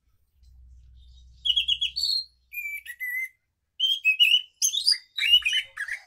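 Caged anis macan (scaly thrush) singing a rapid run of varied whistled phrases and trills, beginning about one and a half seconds in.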